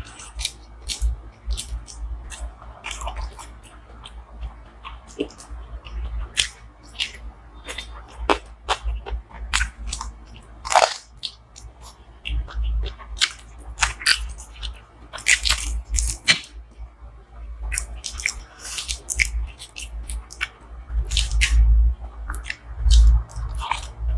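Close-miked chewing and wet mouth sounds of a person eating a meal of butter chicken, paratha and curry, with many irregular sharp clicks and smacks.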